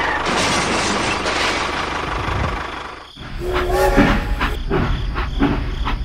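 A steady noisy rush fades out about three seconds in. Then comes a battery-powered toy steam locomotive's electronic sound effects: steady tones with rhythmic clicks about two a second.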